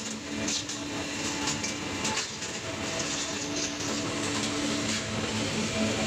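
Copper-aluminium radiator recycling machine running: steady machine noise with a low hum and a frequent light rattle of crushed metal pieces.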